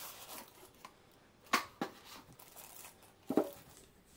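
Plastic bag crinkling and rustling as a bagged router is slid out of its cardboard box and handled, with a few short, sharp crackles, the loudest about a second and a half in and another near the end.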